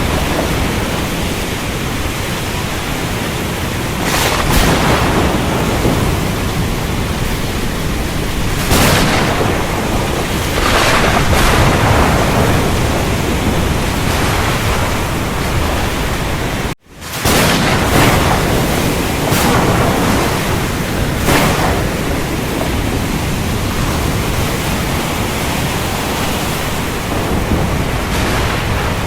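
A thunderstorm: steady heavy rain with short cracks of thunder every few seconds. About 17 seconds in, the sound cuts out for a moment and comes straight back, like the join of a looped recording.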